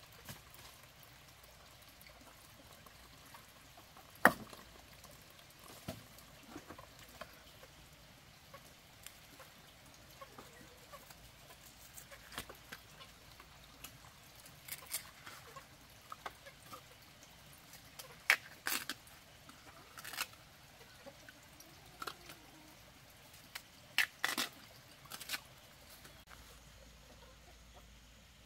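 Bamboo shoots being peeled and handled by hand: scattered light clicks and taps, with a sharp knock about four seconds in and a few short clusters of louder clicks later on.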